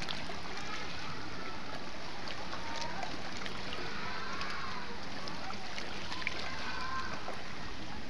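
Shallow seawater lapping and washing among shoreline rocks, a steady wash of water noise, with faint distant voices now and then.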